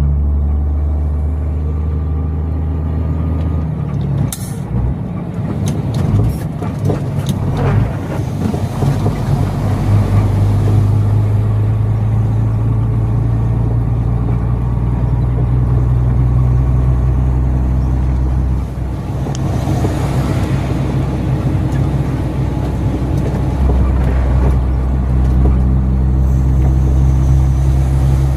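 Truck engine running steadily on the road, its note shifting about four seconds in and twice more later on. A run of sharp clicks comes between about four and eight seconds in.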